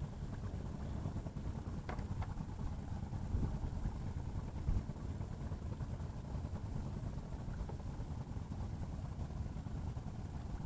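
A boat engine idling steadily, a low rumble, with a couple of light clicks about two seconds in.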